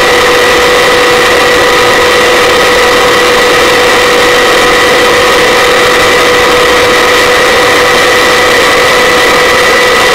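Helicopter in flight: the engine and rotor make a loud, steady din with a constant whine on top.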